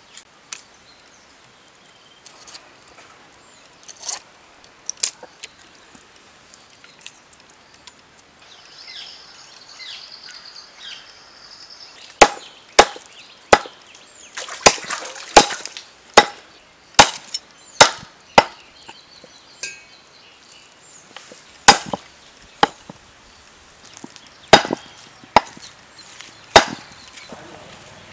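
A blade chopping a skinned rabbit carcass on a chopping block. After quieter handling and a few light knocks, about fourteen sharp chops come in the second half, most of them less than a second apart, with a short pause partway through.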